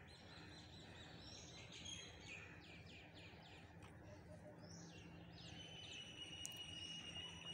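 Faint birdsong: long held whistled notes and quick runs of falling chirps, over a steady low background hum.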